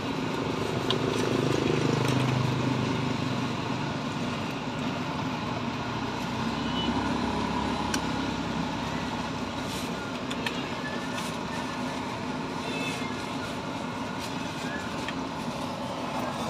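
Wonton-wrapped batagor deep-frying in a wide wok of hot oil, a steady sizzle, with a few light clicks of utensils. A low rumble swells about two seconds in and again around seven seconds.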